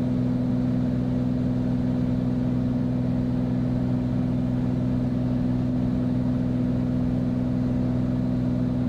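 Beechcraft Bonanza's piston engine and propeller running steadily in cruise, heard from inside the cockpit as an even, unchanging drone with a low hum.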